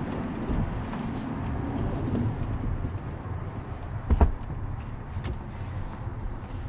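A fitted bed sheet being pulled and tucked over a truck cab's bunk mattress: fabric rustling and handling with scattered light clicks, and one sharper thump about four seconds in. A steady low rumble runs underneath.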